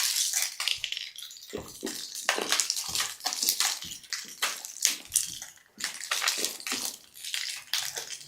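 Plastic snack packets being torn open and crinkled, with crunching as two people eat crisp snacks fast. The crackling comes in many quick, irregular bursts.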